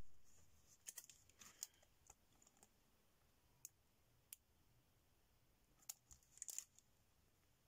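Faint, scattered clicks and crinkles of a metal cutting die in its plastic packaging being handled, with a bunch of them about a second in and another near the end.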